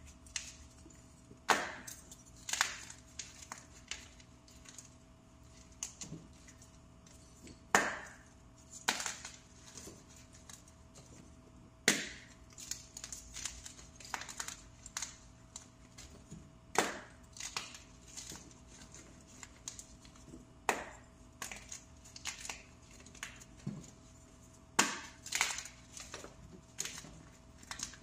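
Compressed powder blocks, plain unscented cornstarch-type chalk, being crushed by hand. Sharp, crisp crunches come at irregular intervals, about one every second or two, some in quick pairs.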